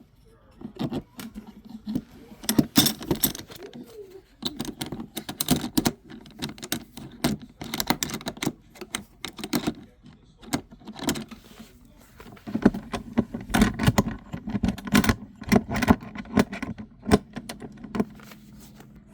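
Metal tools and hardware clinking and rattling in irregular bursts as a bolt on the tool box is worked on and tightened.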